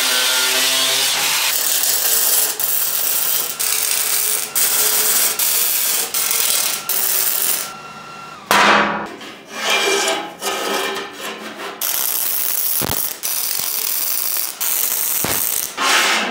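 Angle grinder cutting steel flat bar in steady runs with short breaks. In the second half it comes in shorter bursts, with two sharp metal knocks near the end.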